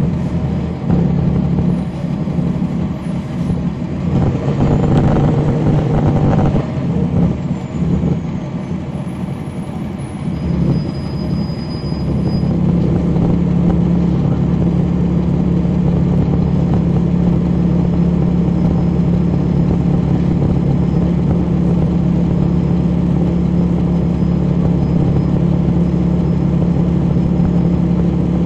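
Cummins ISL9 diesel engine of a 2011 NABI 40-SFW transit bus, heard from the rear of the cabin close to the engine. The engine note varies over the first dozen seconds, then settles into a steady, even drone for the rest.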